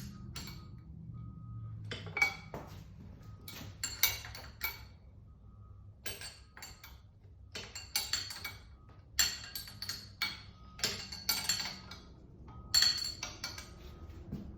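Irregular metallic clinks and taps of a wrench against the mounting bolts and steel plate as the jaw bolts are snugged up, a sharp clink every second or so.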